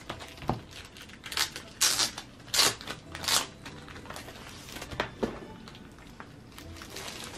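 Clear plastic wrapping crinkling as a tablet case is handled and slid out of its plastic sleeve, in several short loud rustles through the middle. A few lighter knocks come near the start and about five seconds in.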